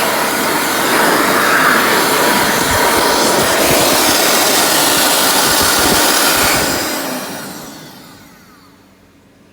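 Automatic handwashing unit running with a loud, steady rushing sound, which dies away over about two seconds near the end as it shuts off.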